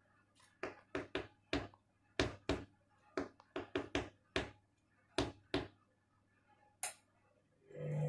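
Candy washing machine on its mats cycle: a run of about fifteen irregular knocks and thunks as the wet doormat moves in the drum, then the drum motor starts with a steady hum just before the end.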